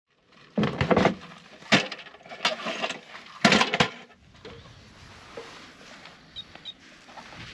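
A run of loud clunks and knocks from the truck camper's door and its aluminum steps as the door is unlatched and opened and the steps are climbed, four or five sharp hits in the first four seconds, then quieter handling.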